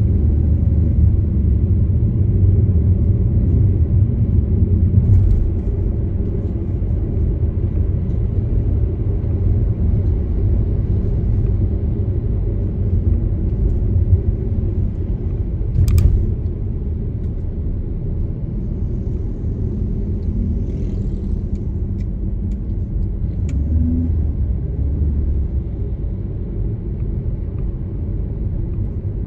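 Steady low rumble of a car being driven: engine and road noise. A single sharp click comes about halfway through.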